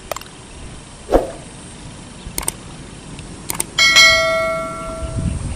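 Subscribe-button sound effect: a few sharp mouse-like clicks, then a bright bell ding that rings on and fades over about a second and a half.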